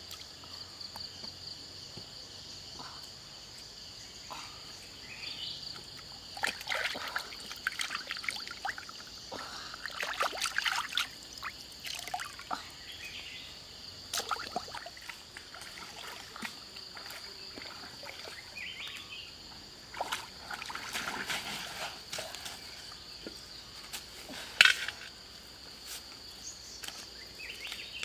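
Water splashing, sloshing and trickling in irregular bursts as fish are rinsed by hand in a shallow stream, over a steady high buzz of insects. One sudden sharp sound stands out about three-quarters of the way through.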